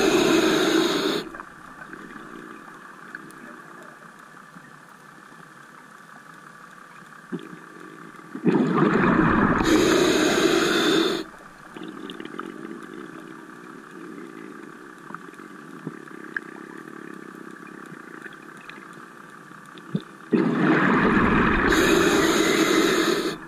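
Open-circuit scuba regulator exhaust: a diver's exhaled bubbles in loud bursts of about three seconds, one breath roughly every ten seconds, with a much quieter steady hiss between breaths.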